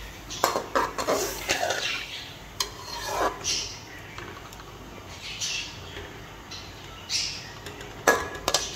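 Slotted spoon scraping and knocking against a metal pot at intervals while stirring chicken pieces frying in ghee, with a cluster of louder knocks near the end.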